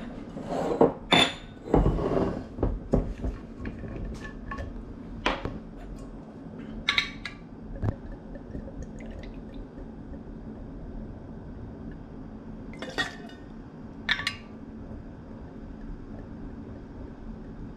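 Stainless steel bar tools, a shaker tin and a jigger, clinking and knocking on a stone countertop, most densely in the first few seconds and twice more near the end. Bourbon is poured in a thin stream into the steel jigger, over a steady low hum.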